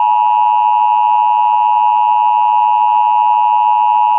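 Loud, steady electronic tone held without a break, pitched near 1 kHz: the sign-off tone of an Emergency Alert System-style broadcast going off the air.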